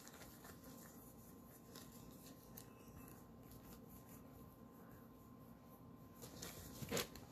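Near silence: faint room tone with a thin steady hum, scattered light clicks, and one soft knock about seven seconds in.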